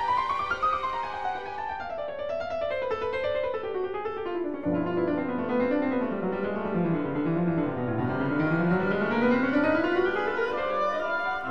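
Solo piano playing classical music: a long run of fast notes winding down from high to low, then climbing back up near the end, with low bass notes coming in about halfway.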